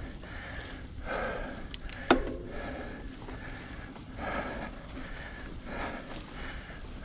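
A mountain biker breathing hard while riding, with heavy breaths about every second and a half over a steady low rumble from the ride. A sharp click about two seconds in is the loudest moment.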